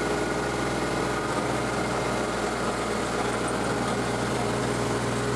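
An engine idling steadily, a constant even hum with no change in speed.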